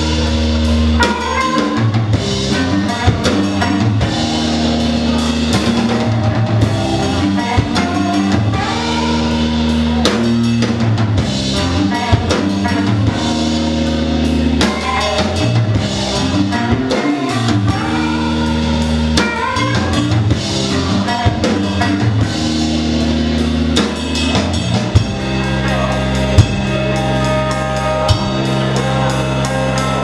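A band playing live: electric guitar, bass guitar and drum kit.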